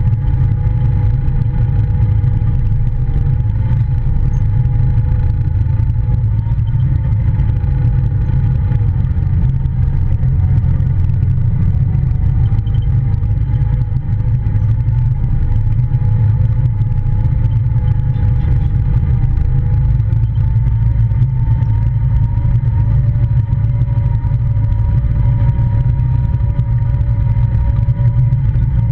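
Polaris Ranger side-by-side running steadily under way, a heavy low rumble with a steady whine over it that rises slightly in pitch about two-thirds of the way through as the engine picks up speed.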